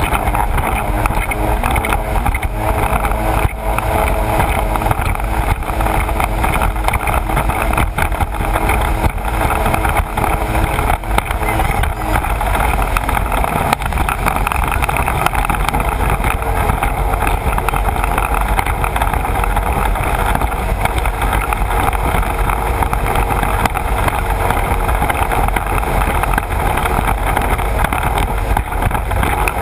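Sea-Doo personal watercraft running at speed: a steady engine drone under the rush of water and spray along the hull, heard from a camera mounted on the craft's nose. The engine's note is plainest in the first dozen seconds, then sinks into the water noise.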